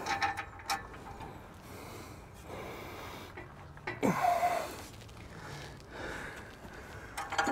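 A man breathing hard and exhaling in heavy puffs while he strains to fit an exhaust pipe by hand, with a short grunt about four seconds in.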